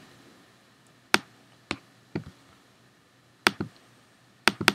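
Computer mouse clicks: about six separate sharp clicks spread over a few seconds, the last two close together near the end.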